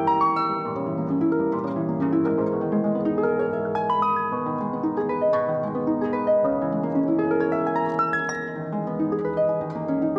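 Concert pedal harp played with both hands: an unbroken flow of plucked notes, mostly in the low and middle range, each ringing on under the next.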